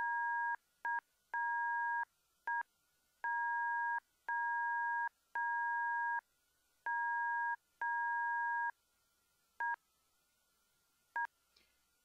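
Electronic beeps from a Morse code telegraph app, each beep two steady pitches sounding together, keyed by hand as a string of long dashes and short dots at uneven spacing. It is hand-keyed Morse code, a fumbled attempt at spelling 'welcome'.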